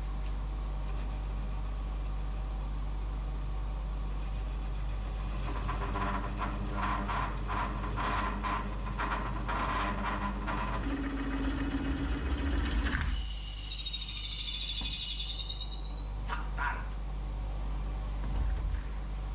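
Wood lathe running with a steady hum while a coring tool cuts into a spinning green birch bowl blank, giving a rough, chattering cutting noise from about a third of the way in. About two-thirds in, the cutting gives way to a high squeal that falls slightly over about three seconds.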